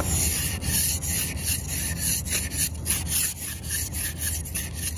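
Handheld ice scraper scraping frost off a car windshield in quick back-and-forth strokes, several a second, each a rough, gritty rasp.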